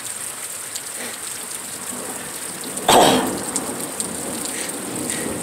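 Heavy thunderstorm rain pouring steadily, with scattered drops ticking. About three seconds in comes a single sudden loud burst that dies away within half a second.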